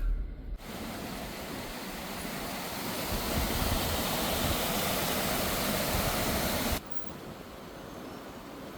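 Steady rush of a fast mountain stream, the Roaring Fork, running over rocks. About seven seconds in it cuts abruptly to a quieter steady rush.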